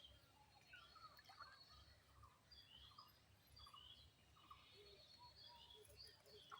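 Faint background birds chirping, with scattered short calls over a low rumble, near silence.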